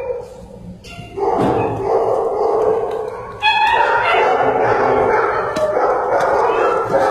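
Dogs barking in shelter kennels. The barking starts about a second in and gets louder about three and a half seconds in.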